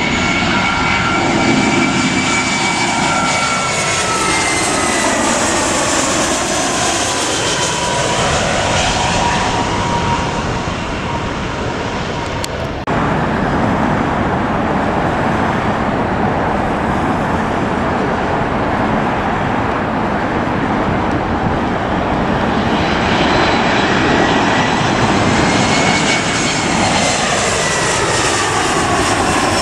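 Jet airliners on final approach passing low overhead. An Airbus A320-family jet's engines whine and the whine drops steadily in pitch as it goes over. After an abrupt cut about halfway through there is a steady jet rumble, and near the end an Embraer E175's engines whine, rising slightly and then falling in pitch as it comes over.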